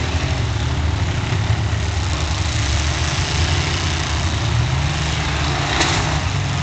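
Several demolition derby cars' engines running together in a loud, steady drone, one of them revving up about five seconds in. A short sharp noise comes near the end.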